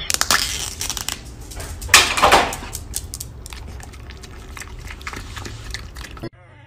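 A dog licking yogurt from a small plastic cup held to its mouth: quick wet lapping and clicking, with a louder noisy burst about two seconds in.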